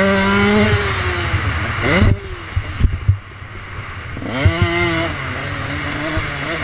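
Dirt bike engine under riding load: it revs up and holds, shuts off about two seconds in with a few sharp knocks while off the throttle, then accelerates again about four seconds in and holds a steady pitch.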